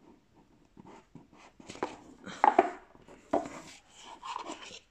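Cardboard card box being opened by hand: the lid slid off and the deck of cards pulled out, giving irregular scrapes, taps and rustles of card and cardboard.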